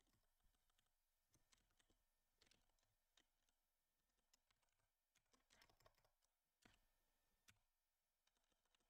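Near silence with faint computer keyboard keystrokes: a dozen or so scattered, irregular clicks, with a short cluster a little past the middle.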